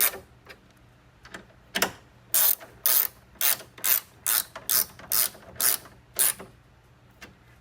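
Ratchet wrench clicking in a run of short back-and-forth strokes, about two a second, as it snugs up the bolts that hold the pottery wheel's metal frame into the wood.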